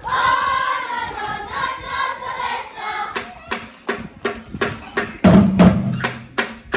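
A group of children singing together, giving way about three seconds in to a steady beat of claps or body slaps, about three a second. Loud chanted or shouted voices join the beat near the end.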